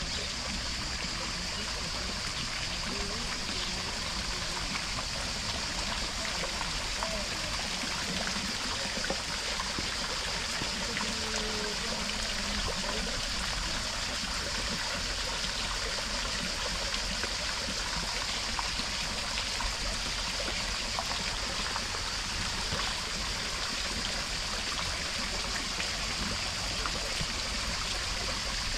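Steady rush of running water, like a fountain or stream, with faint voices at times.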